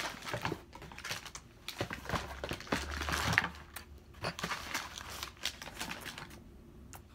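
Irregular clicks, taps and rustling as skincare bottles, tubes and their packaging are handled, with a few low bumps from the handheld phone about two to four seconds in.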